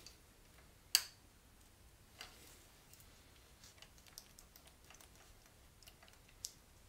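Small clicks and ticks from a 3-button handlebar switch housing being handled and fitted onto a motorcycle handlebar. One sharp click comes about a second in and a lighter one just after two seconds, followed by faint scattered ticks.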